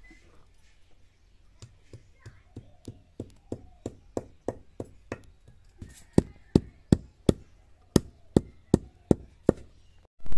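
Stone hand-grinder (batta) pounding whole spices and turmeric pieces on a flat grinding stone. It makes a steady run of sharp stone-on-stone knocks, about three a second, that grow louder as it goes.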